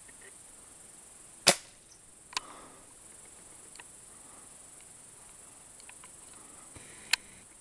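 .177 pellet gun fired once about one and a half seconds in: a single sharp crack, followed about a second later by a softer knock. A second sharp crack comes near the end.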